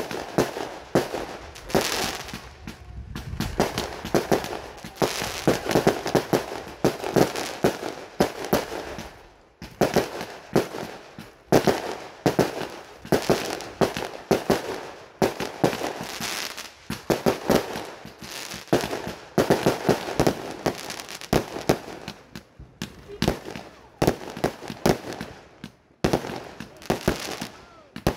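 A 25-shot "Silver Thunder" consumer firework cake firing shot after shot: launch thumps and overhead bursts with dense crackling, in a near-continuous run broken by a few brief lulls.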